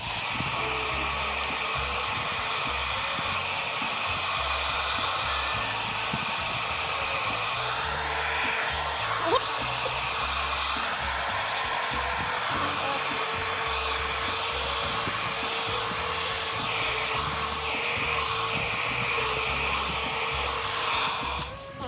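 Handheld hair dryer running steadily, a constant rush of air with a steady motor hum, blowing hair as it is brushed. It switches off just before the end.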